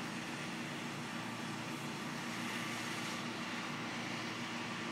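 Power washer running steadily: a constant low drone with an even hiss over it.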